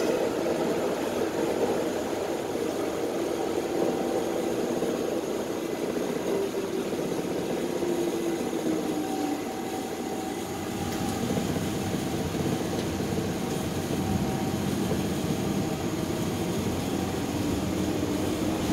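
Streetcar running, heard from inside the passenger cabin: a steady rumble with a faint motor whine that glides up and down in pitch, easing slightly about ten seconds in before picking up again.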